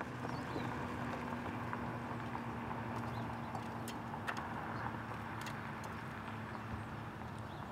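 Outdoor street ambience: a steady low hum under a faint noise bed, with a few scattered light clicks.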